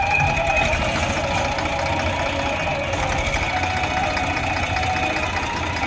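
Eicher 548 tractor's three-cylinder diesel engine running steadily, working the hydraulic tipper while the trailer body is raised to dump soil.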